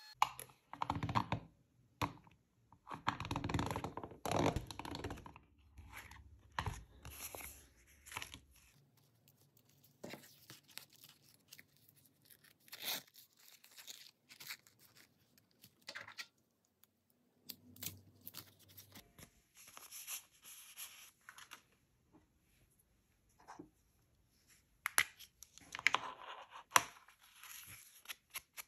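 Paper being torn and handled in irregular bursts, with scattered light taps and scrapes.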